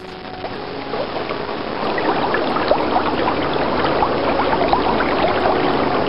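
Water swishing and bubbling, a swimming-through-water sound effect for a crocodile crossing a river. It swells over the first two seconds, then holds steady.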